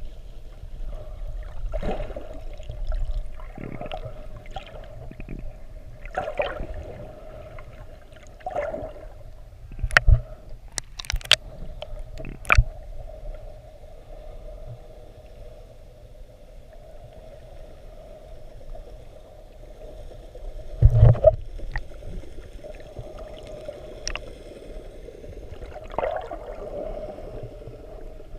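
Water gurgling and sloshing around a camera held in the sea, with a steady hum underneath and a few sharp knocks or clicks.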